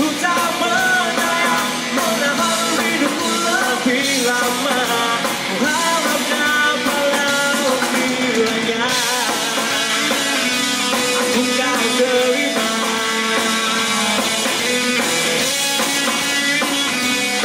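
Live rock band playing loud and steady: drum kit, electric guitars and bass guitar through amplifiers, with a lead melody and sung vocals over them.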